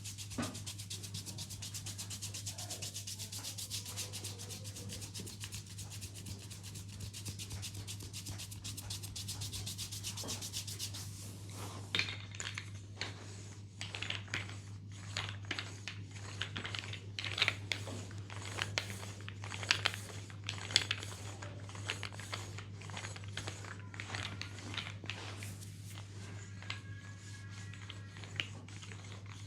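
Hands massaging a knee: fast, even rubbing over skin for about the first twelve seconds, then sharper, irregular taps and pats. A low steady hum runs underneath.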